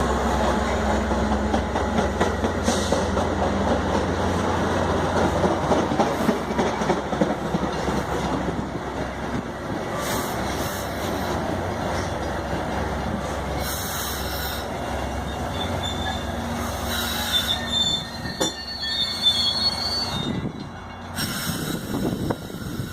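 Metra commuter train rolling into the station: a steady rumble of wheels on rail over a low engine hum, with high, thin wheel squeals in the second half.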